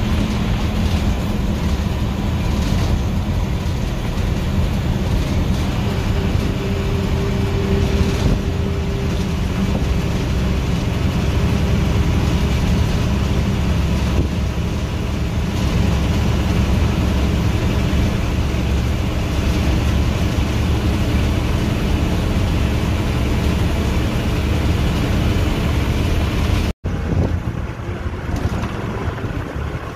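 Bus engine and road noise heard from inside the cab at highway speed: a steady, loud low drone. Near the end it breaks off and gives way to a thinner, hissier sound.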